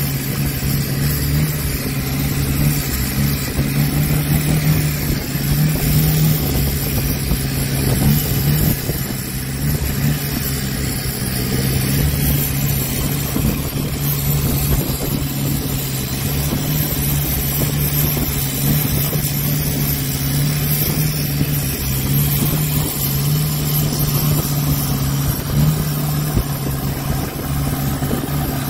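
Motor of a small wooden boat running steadily at cruising speed, a constant low hum with an even hiss of water and wind over it.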